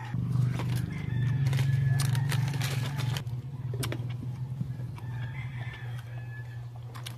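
Chickens clucking and a rooster crowing, over a steady low hum that is loudest for the first three seconds. Short crisp crunches of green mango being bitten and chewed.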